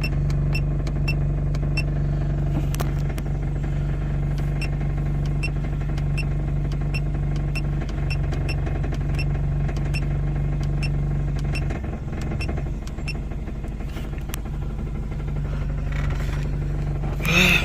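Nissan AD wagon's engine idling steadily, with light ticking about twice a second over it. The hum sags briefly around two-thirds of the way through, and a short louder sound comes just before the end.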